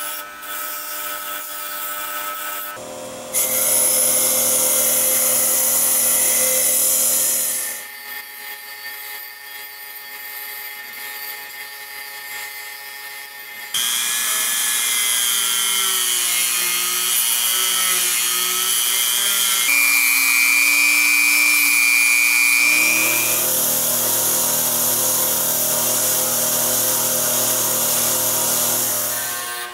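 Bench grinder running with a fine brass wire wheel, scouring the brass body of old binoculars with a loud rubbing hiss, then running more quietly between passes. In the middle a Dremel rotary tool with an abrasive buff whines as it polishes inside a brass barrel, its pitch wavering and then holding steady. Near the end the wire wheel is back on the brass.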